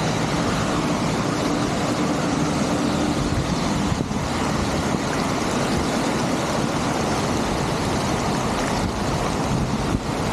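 Steady, loud rush of floodwater pouring through a cleared road culvert, with a faint low hum that stops about three and a half seconds in.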